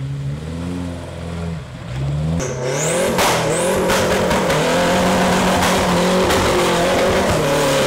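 Off-road 4x4 engines revving through deep mud, the pitch rising and falling. About two seconds in it turns abruptly louder: a higher, held rev over the spray of wheels spinning in mud.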